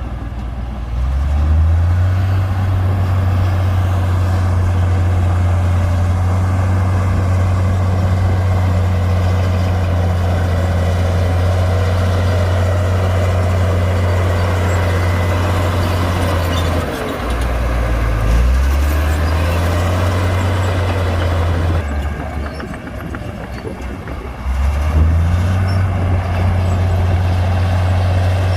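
Komatsu D58P bulldozer's diesel engine working under load, its deep note rising about two seconds in. The note drops briefly past the midpoint, then again for a few seconds near the end, before picking back up each time.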